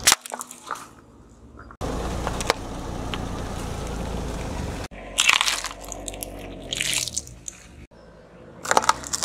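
Objects crushed under a car tyre on asphalt, heard as a series of sharp cracks and crunches from plastic items giving way. The crunches come in clusters: at the start, around five and seven seconds in, and again near the end. Between the first and second clusters a steady noisy rumble runs for about three seconds.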